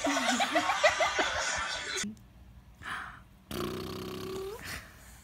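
A toddler giggling in short bursts for about two seconds. After a pause, a single held voice sound of about a second that rises in pitch at its end.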